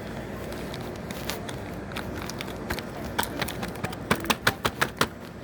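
Steady background noise of a store, with a quick run of about eight sharp clicks or taps in the second half.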